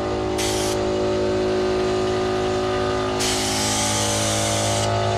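Air compressor motor running steadily while a paint spray gun hisses in bursts, a short one under a second in and a longer one from about three to five seconds in, spraying clear-coat varnish.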